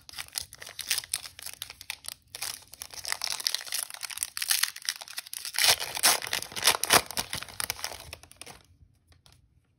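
Foil wrapper of a Donruss Elite football card pack being torn open and crinkled by hand: a dense run of crackles and rips that stops shortly before the end.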